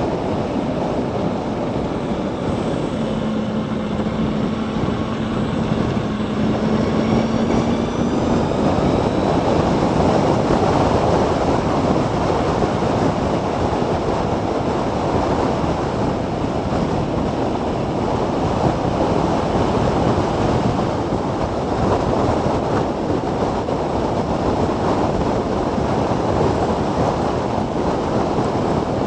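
Steady rush of wind and road noise from a Zero DSR electric motorcycle riding at speed, picked up by a bike-mounted camera's microphone. For a few seconds near the start, a low steady hum and a faint high whine that rises in pitch sound over it.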